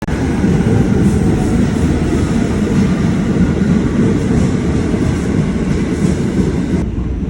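Subway train running: a loud, steady rumble with a hiss above it that falls away near the end.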